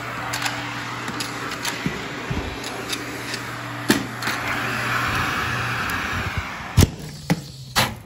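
1987 Filtex TS-300-L central vacuum drawing air through a basic hose and floor tool on carpet: a steady rush of suction over a low motor hum. Near the end the suction cuts out, typical of its worn, touchy wall-inlet valve losing contact, followed by a sharp knock and a couple of clicks.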